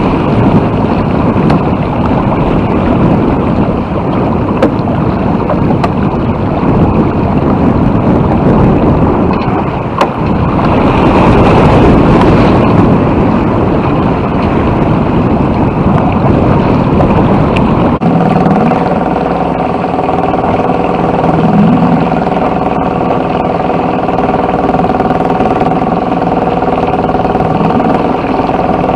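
Wind buffeting the microphone over rushing water on a sailboat in a strong wind. About two-thirds of the way through, the sound switches abruptly to a boat engine running steadily.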